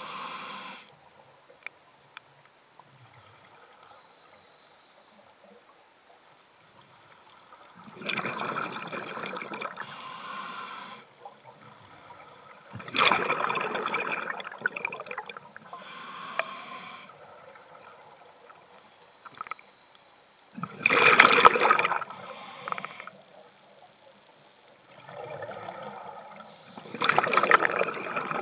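Scuba diver breathing through a regulator, heard close up underwater. Four loud bursts of exhaled bubbles come a few seconds apart, with quieter inhalations between, after a quiet first few seconds.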